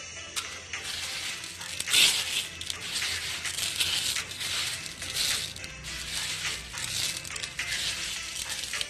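Uncooked glutinous rice grains rustling and sliding against a plastic basin and cup as a hand scoops through them, in repeated swishes about once a second.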